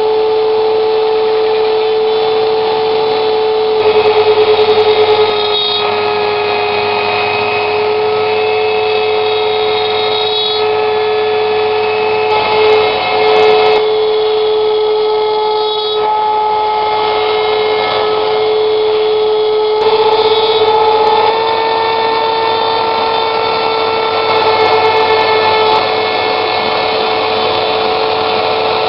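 Shapeoko 2 CNC router milling wood: the spindle motor whines steadily as the end mill cuts. Higher tones above it change pitch every few seconds, and the sound grows briefly louder a few times.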